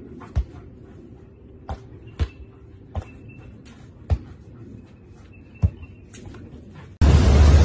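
A volleyball being knocked back and forth between a person's forearms and a golden retriever's head: six sharp thumps spread unevenly over about five seconds, with faint bird chirps behind them. Near the end it cuts abruptly to a loud, steady rushing noise.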